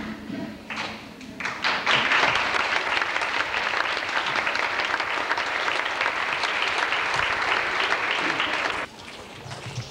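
Audience applauding, a dense spread of hand claps that builds about a second and a half in and cuts off abruptly near the end.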